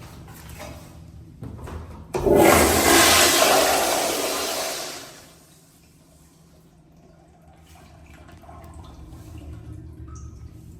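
A restroom fixture flushing. There are a few faint clicks, then about two seconds in a sudden loud rush of water that lasts about three seconds and dies away.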